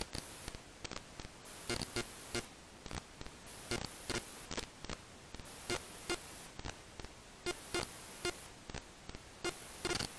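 Background music with a steady beat and a high repeating electronic tone.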